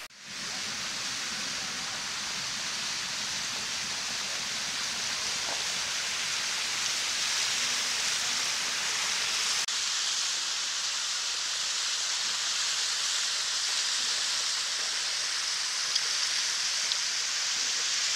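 Steady hiss and rush of a waterfall, with no voices. It dips briefly about ten seconds in and comes back slightly louder, with a faint click or two near the end.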